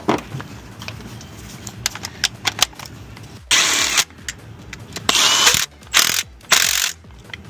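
Cordless Milwaukee Fuel brushless ratchet running in four short bursts, about half a second each, starting about three and a half seconds in, nipping down the two new bolts of a freshly fitted diesel unit pump. Before it, scattered light metal clicks and taps of tools on the engine.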